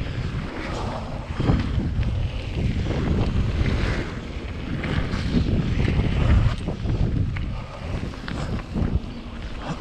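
Mountain bike rolling fast down a gravel trail: a steady rumble of wind buffeting the action camera's microphone over tyre noise, with short knocks and rattles from the bike over bumps.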